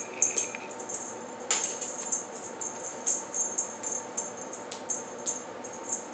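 A bird-on-a-stick cat wand toy rattling in quick, irregular little jingles as it is shaken and batted at, with one sharper knock about a second and a half in.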